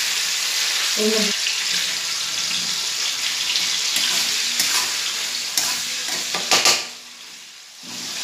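Food sizzling in hot oil in a large steel wok, stirred with a metal spatula that scrapes and clatters against the pan, loudest about six and a half seconds in. The sizzle drops away sharply for about a second near the end.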